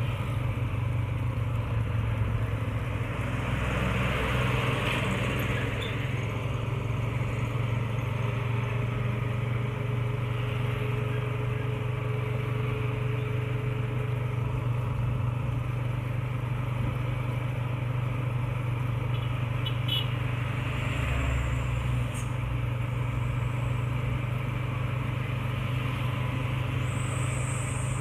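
A motorcycle running steadily at cruising speed: an even engine drone with road noise.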